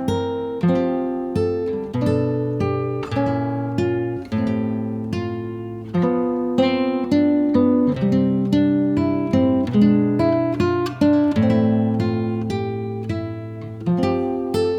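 Acoustic guitar music: a steady run of plucked notes and chords, each ringing and fading before the next.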